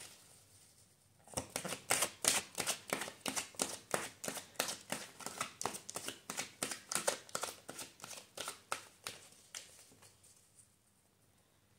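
A deck of tarot cards being shuffled in the hands: a rapid run of soft card slaps and riffles, about four or five a second, starting about a second in and stopping near the end.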